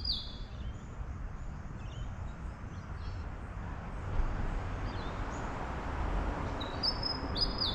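A bird calls twice, a short high whistled phrase near the start and the same phrase again near the end, over a steady low background rumble.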